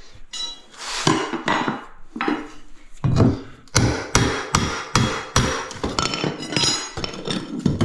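Hammer strikes on ceramic floor tiles: a few scattered knocks, then from about three seconds in a quick run of sharp strikes about three a second.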